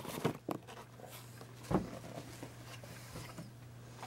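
Handling noise as a camera is set down and a cardboard box moved: a few light clicks at the start and one louder knock just under two seconds in, over a faint steady low hum.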